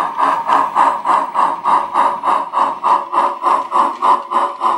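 Steam exhaust chuffs from a WOWSound sound decoder in a model Challenger steam locomotive, played through a high-bass speaker: an even, quick beat of about four chuffs a second as the locomotive runs.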